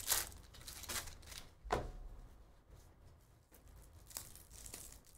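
A trading-card pack wrapper being torn open and crinkled by hand, in a few short rustling bursts over the first two seconds. Then softer handling of the cards as they are slid apart.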